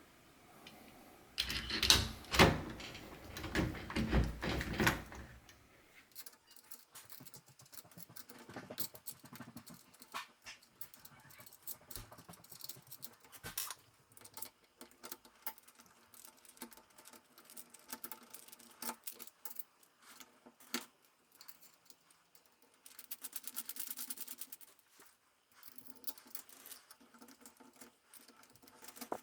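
Metal door-lock hardware being handled and fitted, with clinks and rattles loudest and densest in the first few seconds, then scattered sharp clicks and a short buzzy rattle near the end.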